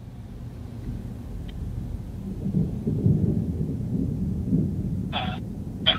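Low rolling rumble of thunder, swelling from about two seconds in and rolling on unevenly.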